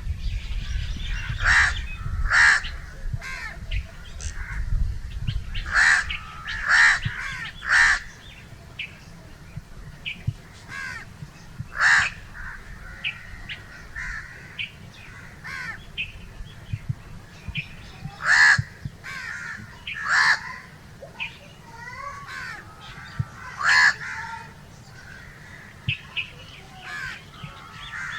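Crows cawing: loud, harsh caws in pairs and short runs, several seconds apart, with fainter calls in between. A low rumble lies under the first several seconds.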